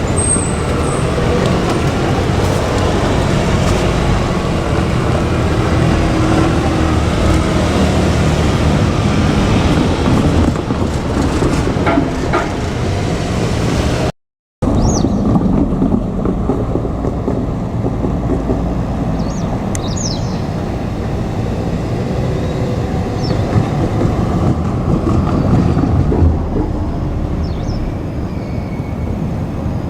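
JR Kyushu 817-series electric train running past, a steady loud rumble of wheels and motors. The sound drops out for a moment about halfway through, then carries on with less hiss and a few short high-pitched sounds.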